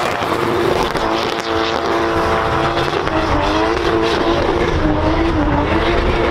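Drift car's engine held at high revs, its pitch wavering up and down as the rear tyres spin and squeal through a smoky slide.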